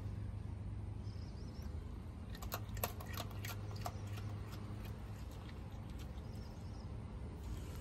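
Raccoon chewing dry kibble: a run of sharp, crackly crunches between about two and four seconds in, over a steady low hum.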